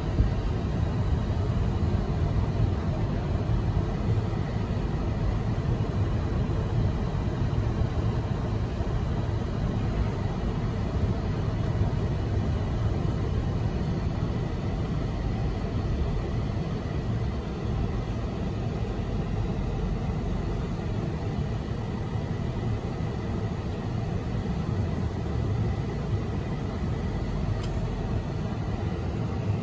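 Road and engine noise heard from inside the cabin of a moving car: a steady low rumble.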